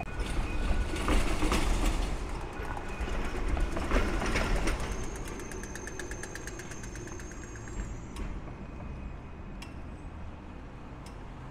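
Melbourne E-class tram running past on street rails, with a car driving by close. The noise is loudest in the first five seconds, then drops to quieter street noise.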